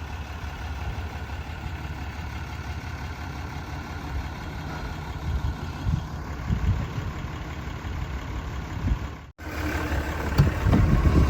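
Vehicle engine running steadily with a low rumble, broken briefly by a sudden cut about nine seconds in.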